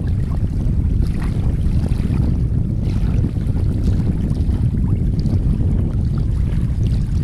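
Wind buffeting the microphone as a steady low rumble, with faint splashes of small waves lapping on the water.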